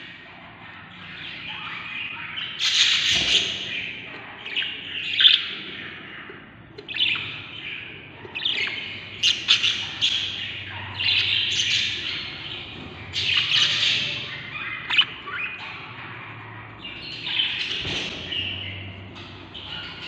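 Budgerigar chicks in a nest box giving hungry begging calls: raspy chirps in repeated bursts every second or two. There is a soft thump about three seconds in and another near the end.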